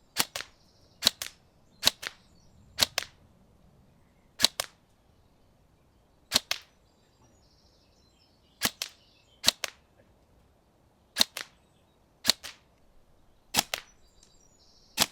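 Tokyo Marui Next Gen Recoil Shock electric airsoft rifle firing about eleven single shots at an irregular pace, roughly one to two seconds apart. Each shot is a sharp, quick double click.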